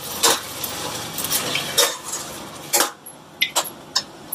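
Steel mixer jar and steel spatula clinking and scraping against a stainless steel kadai as ground tomato paste is poured in and stirred, with about five sharp metal clinks over a soft frying sizzle.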